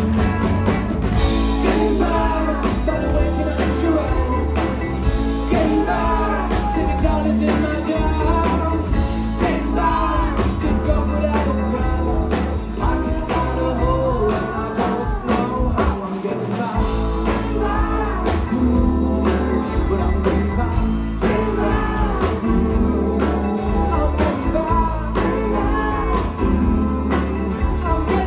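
Live rock band playing a song: drums, bass guitar and guitars, with a lead vocal singing over them.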